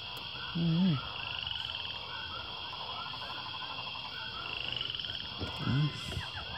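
A dense chorus of short, chirping and croaking animal calls, with a steady high drone over it. Two louder low calls stand out, one about half a second in and one near the end.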